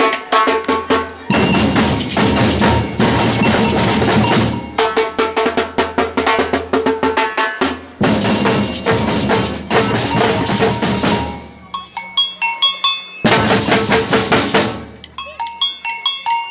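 Batucada samba percussion band playing a driving drum rhythm. Twice, about twelve seconds in and again near the end, the low drums drop out for a moment, leaving only higher bell-like strikes before the full band comes back in.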